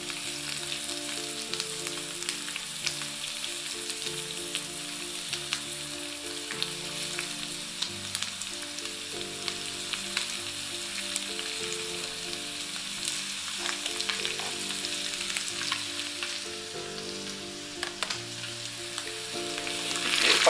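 Diced onion and half-fried meat sizzling steadily in a frying pan, with scattered clicks and scrapes as the onion is pushed off a plastic cutting board and stirred in with a wooden spatula. Soft background music plays underneath.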